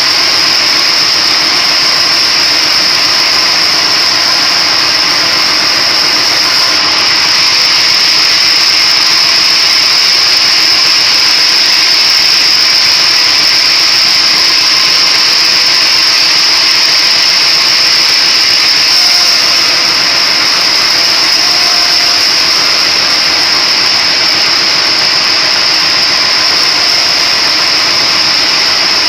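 Splitting machine running steadily, a loud continuous mechanical noise with a steady high whine.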